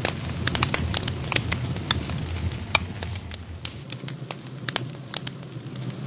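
Campfire burning: wood crackling with irregular sharp pops and snaps over a low steady rumble of the flames, with a couple of brief high squeaks about a second in and near four seconds.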